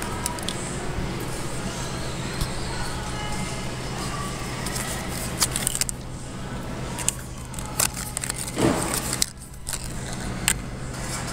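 Steady hum of store background noise, overlaid with clicks, small rattles and rustling as a plastic skeleton-hand decoration and its card price tag are handled close to the microphone. There is a louder rustle of handling about eight and a half seconds in.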